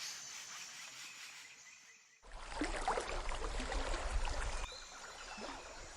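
Sound effect of rushing river water with a low rumble. It starts abruptly about two seconds in, after a faint background ambience fades out, and drops back to a quieter level near the end.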